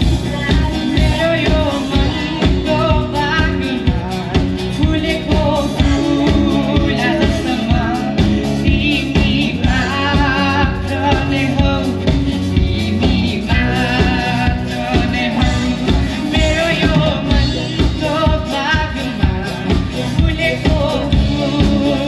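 Live rock band playing a song through amplifiers: electric bass, acoustic and electric guitars and drums keeping a steady beat, with a male lead vocalist singing over them.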